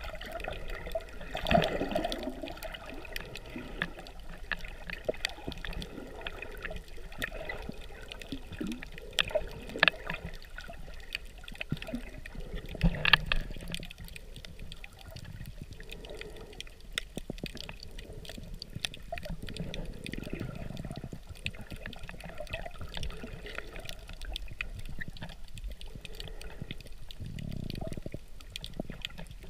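Underwater sound picked up by a submerged camera over a coral reef: muffled water movement with many small scattered clicks and crackles. A few louder swishes come near the start and again about 13 seconds in.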